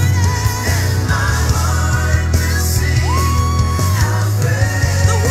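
Christian worship song playing: a sung vocal line over a steady beat and heavy bass, with one long held note about three seconds in.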